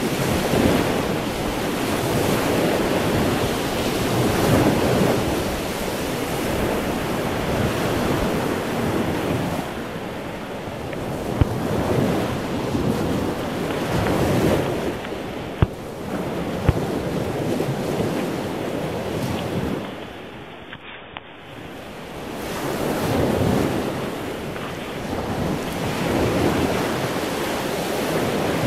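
Sea surf breaking on a beach, swelling and fading every few seconds, with wind buffeting the microphone. A few sharp clicks stand out near the middle.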